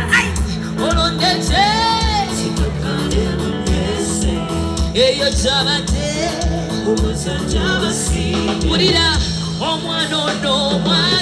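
Live band music with a female lead vocal sung into a microphone: a steady bass beat under wavering sung lines with vibrato, backed by saxophone, bass guitar, keyboards and backing singers.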